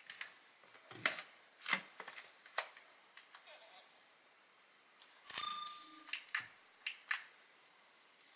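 Clicks and knocks of a Dyson V12 Slim Detect cordless vacuum being handled, then about five seconds in a loud, steady high-pitched tone lasting about a second, followed by two more clicks.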